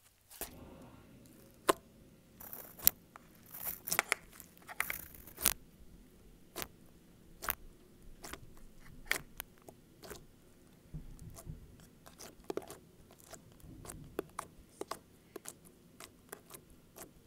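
Pink glitter slime being kneaded, pressed and poked by hand, giving an irregular run of sharp clicks, pops and crackles.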